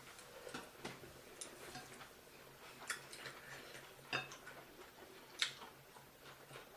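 Irregular soft clicks and taps of eating at a table, such as utensils touching plates and mouth sounds, with the sharpest click about five and a half seconds in.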